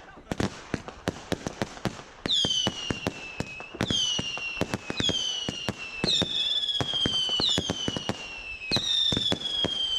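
Fireworks going off: a rapid string of pops and bangs, and from about two seconds in, six whistling fireworks one after another, each whistle sliding down slightly in pitch over a second or so.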